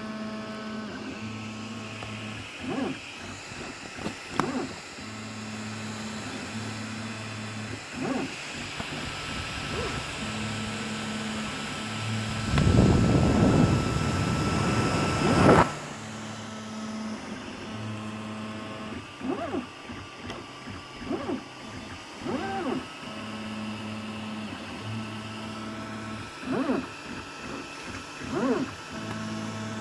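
3D printer stepper motors humming and whining as the print head moves, in tones that start, stop and shift pitch every second or two, with short rising-and-falling whines on quick moves. About halfway through, a louder low rushing noise lasts about three seconds.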